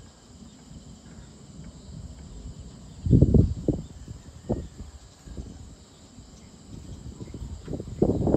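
A steady, high-pitched evening insect chorus, with brief loud low bursts of noise about three seconds in, once more a little later, and again near the end.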